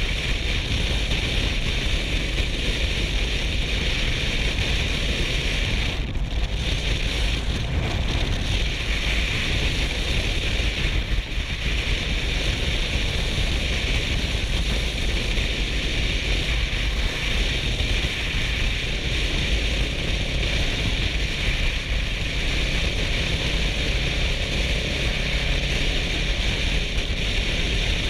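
Steady wind rush on the microphone and road noise from a Kawasaki Versys 650 riding at road speed, with the parallel-twin engine droning underneath.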